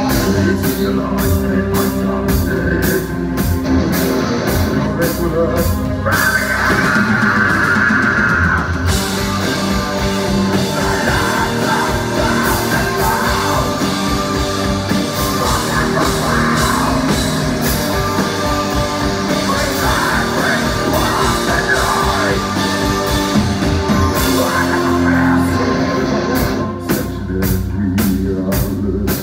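Live rock band playing: distorted electric guitars, a drum kit and a male singer. Steady cymbal hits open and close the stretch, with a long held sung note a few seconds in.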